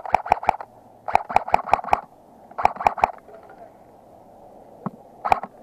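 Electric airsoft gun firing full-auto in short bursts, about ten shots a second: four bursts, the last starting near the end.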